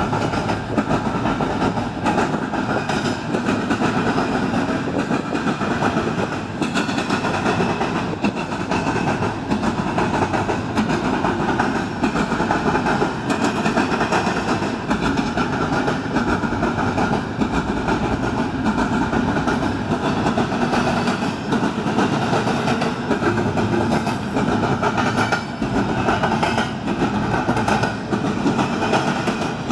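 A CN double-stack container freight train rolling steadily past: the continuous noise of its steel wheels on the rails.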